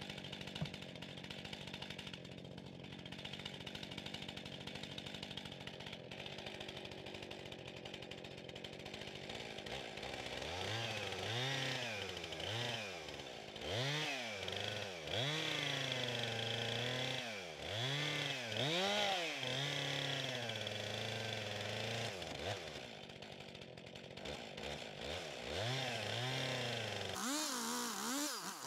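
Stihl chainsaw boring into a log to clear out a mortise. It runs steadily for about ten seconds, then its revs rise and fall over and over as the bar is worked into the wood, climbing to a higher pitch near the end.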